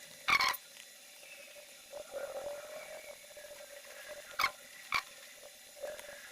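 Three short sharp clicks from desoldering work on the capacitors of a switch-mode power supply board, one near the start and two in quick succession about two-thirds through, over a faint steady hum.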